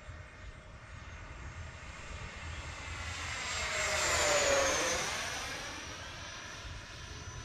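Electric ducted-fan whine of an E-Flite F-16 70mm RC jet making a fly-by. It swells to its loudest about four and a half seconds in, drops in pitch as the jet passes, then fades.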